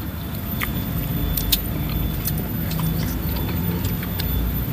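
Eating close to the microphone during a meal of rice, chicken curry and raw vegetables: chewing over a steady low rumble, with a scattering of short sharp clicks.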